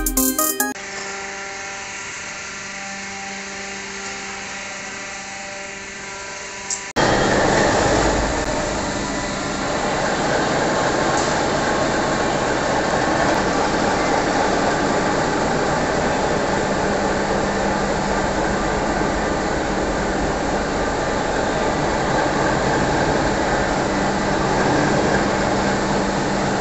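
Ship's marine diesel main engine and its gearbox and shafting running in the engine room: a loud, steady mechanical din with a low hum. It comes in suddenly about seven seconds in, after a quieter steady machinery hum.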